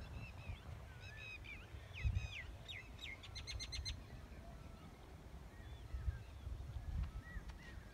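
Birds calling in short, up-and-down whistled chirps, with a quick run of about eight sharp notes a little past three seconds in and more calls near the end, over a constant low rumble.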